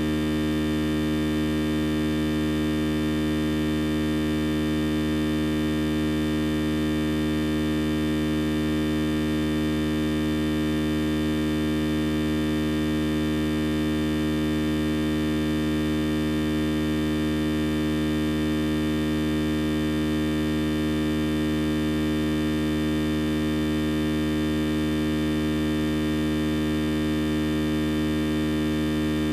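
Steady electrical hum with a buzzy stack of overtones, unchanging in pitch and level: mains hum in the recording or sound system.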